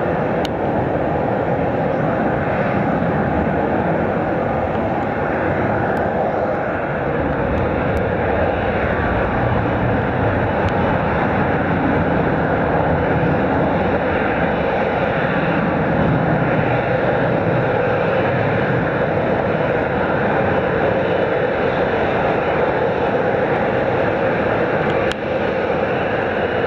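Jet engines of taxiing airliners running, a loud, steady, continuous rush.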